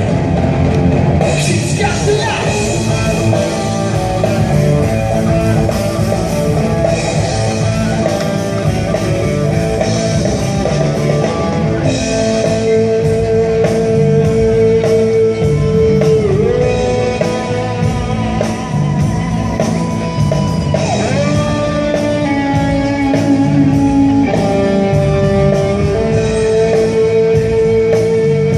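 Rock music with guitar and drum kit, with long held notes over a steady beat.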